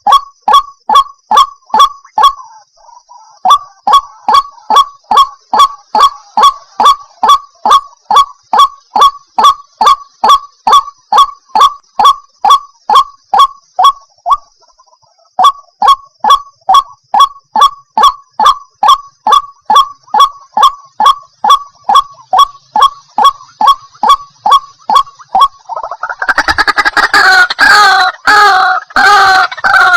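White-breasted waterhen (ruak-ruak) calling: a short croaking note repeated evenly about three times a second, breaking off briefly midway. Over the last few seconds it swells into a louder jumble of overlapping calls, as from several birds at once.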